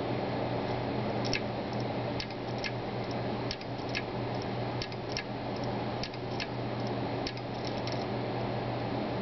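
Seagate Barracuda 1 TB hard drive humming steadily while its heads click about a dozen times at irregular intervals, often in quick pairs. The owner finds the drive loud and the clicking not normal for a brand-new drive.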